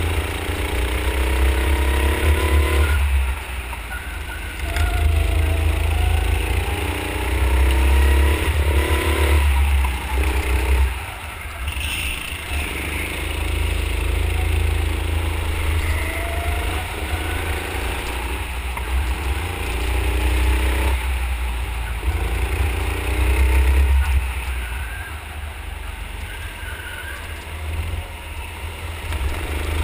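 Go-kart's 9 hp engine heard from on board the kart, revving up in pitch on the straights and falling away each time the throttle is lifted, several times over, with a heavy low rumble underneath.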